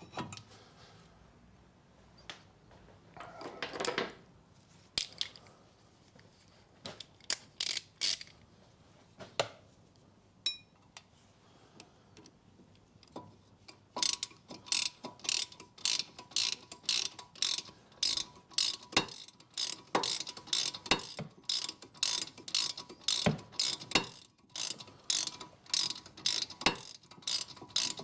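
Scattered clicks and knocks of metal parts and tools being handled, then from about halfway in a ratchet clicking in quick, even strokes as the brake caliper's bolts are run in.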